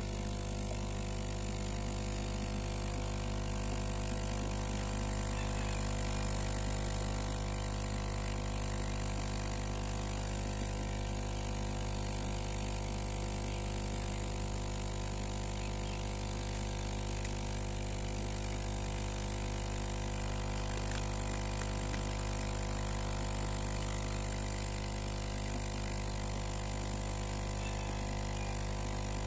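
Steady machine hum with several constant tones and a low drone, over an even hiss, unchanging throughout.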